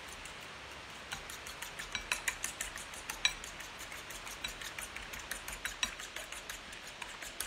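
Eggs being beaten by hand in a ceramic bowl: a utensil clicks quickly and unevenly against the bowl's sides, starting about a second in.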